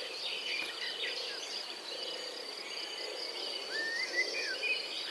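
Outdoor ambience: a steady high-pitched insect trill, with birds chirping now and then over it.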